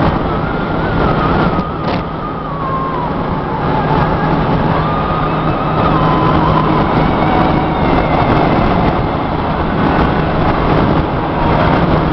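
Road noise inside a car cruising on a freeway: a steady rumble and hum, with a higher wavering tone that slowly slides up and down over it.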